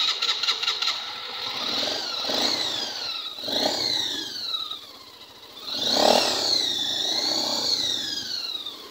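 Suzuki Thunder single-cylinder four-stroke motorcycle engine, bored out to 152 cc, starting up abruptly and being revved several times, rising and falling in pitch. The blips blow leftover burnt oil and black soot out of the freshly cleaned exhaust.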